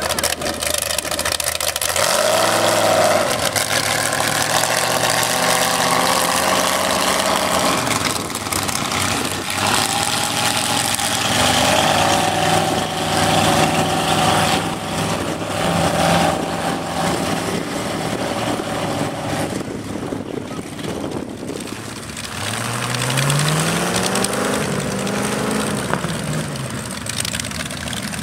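Engines of lifted mud-bogging pickup trucks running and revving as the trucks move past. The engine pitch holds steady for stretches, with short rev-ups about two seconds in and again near the end.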